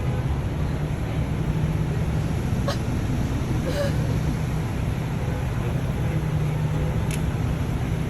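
Steady low rumble of a moving vehicle, with three faint clicks.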